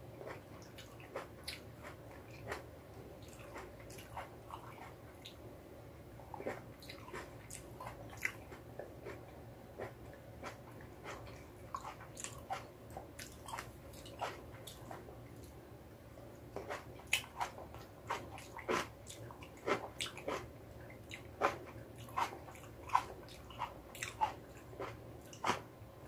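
Cherry tomatoes being bitten and chewed: a stream of short pops and clicks from the mouth, coming thicker and louder in the second half.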